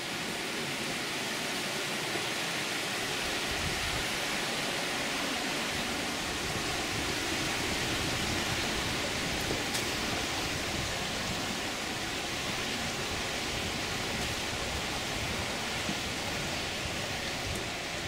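Steady rushing outdoor noise, even throughout, with a few faint ticks.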